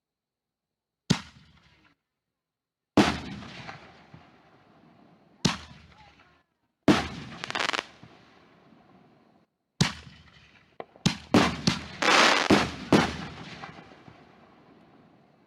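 Consumer fireworks going off: sharp bangs, each fading out in an echo, spaced a couple of seconds apart, then a quick run of about six bangs near the end.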